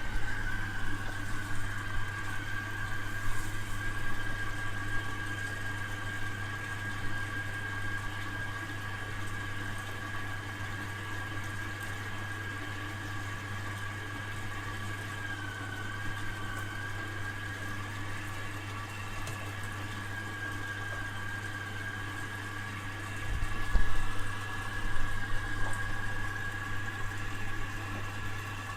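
Hoover DYN 8146P8 washing machine running on its 60 °C cotton programme: a steady high motor whine over a low hum, with a few louder knocks about three-quarters of the way through.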